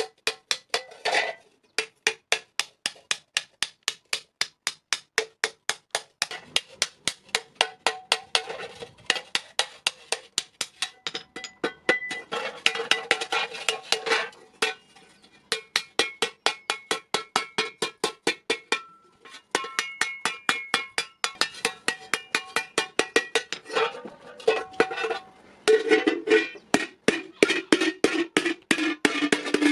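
A hand hammer beating a sheet-iron thali on an anvil in a fast, steady rhythm of about three to four blows a second. Each blow rings with a metallic tone, and there are a few brief pauses. The blows are shaping the raised ridges that divide the plate.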